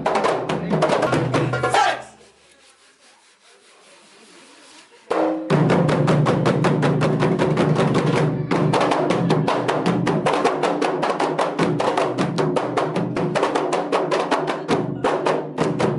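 A kompang troupe: many hand-held Malay frame drums struck with the palms in a fast, dense rhythm. The drumming breaks off about two seconds in, goes faint for about three seconds, then starts again loudly.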